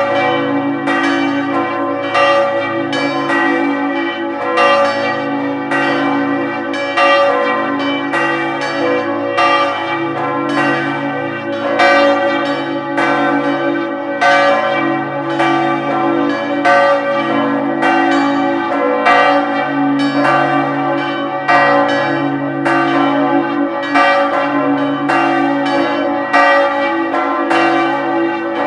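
Several church tower bells ringing together in a continuous peal. Strokes follow each other quickly and overlap, over the steady hum of the larger, lower bells.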